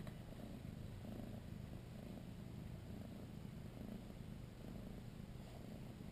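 Tabby mother cat purring low and steady while in labour.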